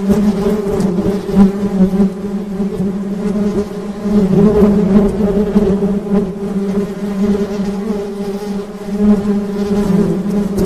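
Honey bees buzzing: a continuous low hum whose pitch wavers slightly and whose loudness swells and dips.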